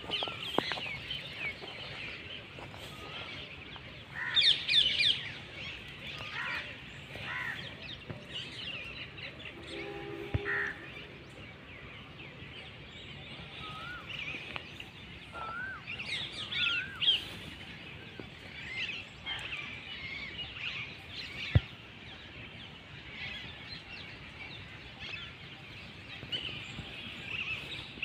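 Many birds chirping and calling in overlapping short high chirps, with a few short warbled notes about halfway through. A single sharp click comes about three-quarters of the way through.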